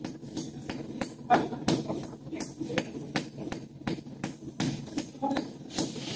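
Repeated sharp knocks, about four a second and unevenly spaced, from hammer-like blows on a hard surface, with the loudest about a second in.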